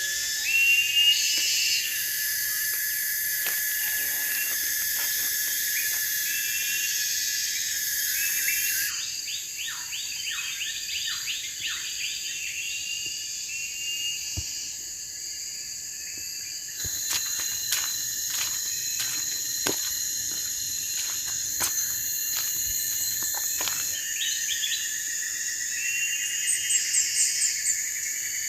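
Dense chorus of night insects such as crickets trilling steadily, with scattered chirping calls. A run of short falling chirps comes about a third of the way in, and a series of sharp clicks comes past the middle.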